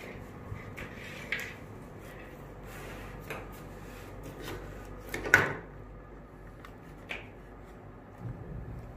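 Handling sounds of wiring and electronic parts on a wooden tabletop: scattered light clicks and rustles, with one louder knock about five seconds in.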